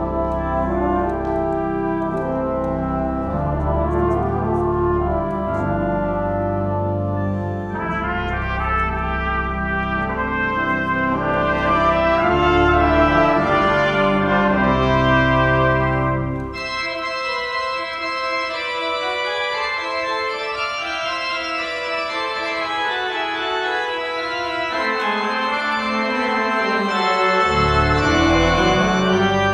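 Brass ensemble of trumpets, horn, trombone and tuba playing a festive arrangement together with a pipe organ. Midway the deep bass notes drop out while the higher brass and organ carry on, and the low notes come back near the end.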